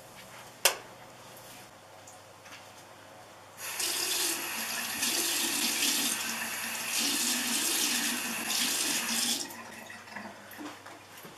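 A wall light switch clicks once, sharply, about a second in. Then a bathroom tap runs into the sink for about six seconds with water splashing as a face is washed under it, and the water stops near the end.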